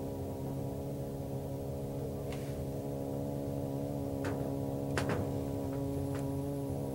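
A steady machine-like hum with several stacked pitches, and a handful of sharp clicks or taps; the loudest click comes about five seconds in.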